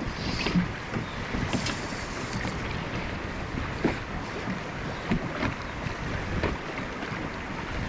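Wind on the microphone and choppy water lapping against the hull of a small drifting boat, with a few light knocks.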